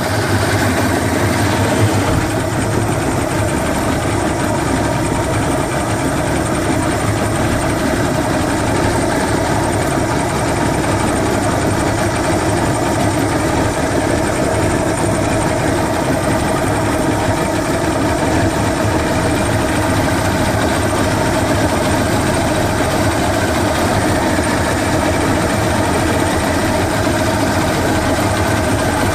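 Johnson 150 hp outboard motor running steadily.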